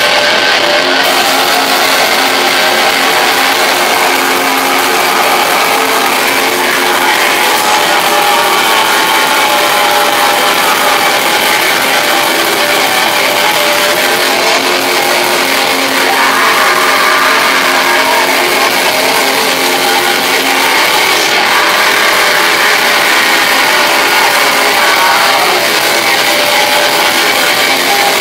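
Black metal band playing live: a loud, dense, unbroken wall of distorted electric guitars, with held chords and little low end.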